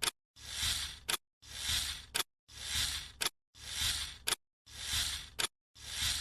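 A swelling and fading hiss that ends in a short sharp click, repeated at an even pace of about once a second, with dead silence between repeats. It sounds like an edited, looped sound effect.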